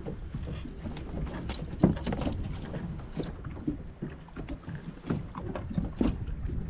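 Small waves slapping against a kayak hull on choppy water, with wind rumble on the microphone. Scattered knocks and clicks from handling gear on the deck, the sharpest about two seconds in and another near the end.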